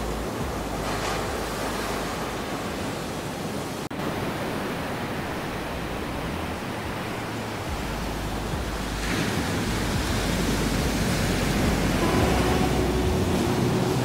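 Ocean surf washing onto a sandy beach: a steady rushing noise that swells as waves break, about a second in and again around nine seconds. Soft held musical tones come in near the end.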